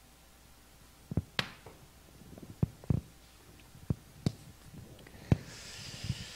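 Scattered knocks and taps from a handheld microphone being picked up and handled, with a short rustle of paper near the end.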